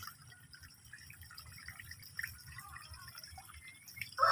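Faint water dripping and trickling into a pond, with small scattered splashes. A loud call cuts in right at the end.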